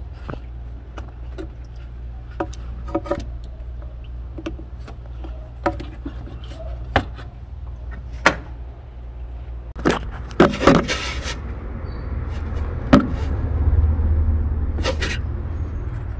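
Scattered clicks and knocks of hoses, plastic clips and parts being handled in a car's engine bay, with a short louder clatter about ten seconds in. A steady low hum runs underneath and grows louder for a couple of seconds near the end.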